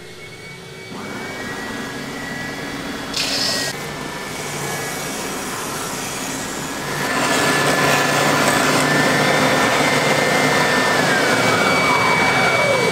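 Triton oscillating spindle and belt sander spinning up with a rising whine, then running while the MDF roof piece is pressed against the sanding belt to round its edges; the sanding gets louder about seven seconds in. Near the end the motor is switched off and winds down with a falling whine, while a dust extractor on the hose keeps running.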